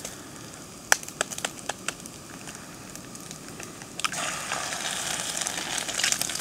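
A few sharp clicks as an egg is cracked open over the pan, then from about four seconds in a steady sizzle as the egg hits the hot fat of frying bacon cubes.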